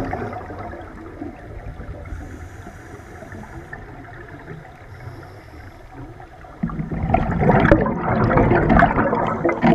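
A scuba diver breathing through a regulator underwater: bubbles rush and gurgle on the exhale at the start and again for about three seconds near the end, with a quieter stretch between.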